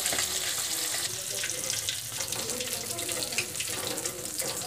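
Fish pieces deep-frying in hot mustard oil: a steady sizzle thick with small crackles and pops.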